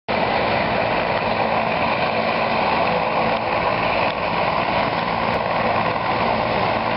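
Medical helicopter's turbine engine running steadily on the helipad before takeoff: a loud, even rushing noise with a steady high whine over it.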